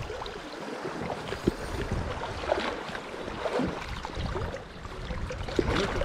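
Fast shallow river water rushing and splashing around a wading angler's legs, with irregular small splashes as a hooked trout is played close by.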